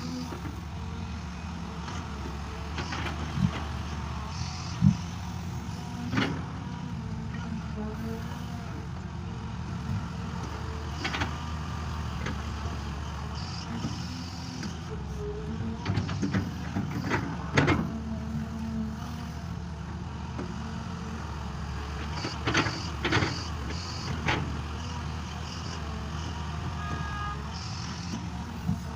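Engine of a farm machine working a field, running steadily, with scattered clanks and knocks about every few seconds.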